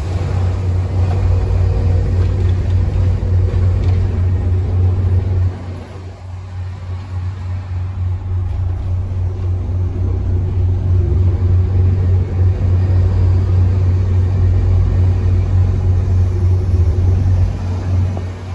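Volvo B7TL bus's six-cylinder diesel engine, heard from inside the bus, running under load as a loud deep rumble. It eases off about five and a half seconds in, then builds again and holds.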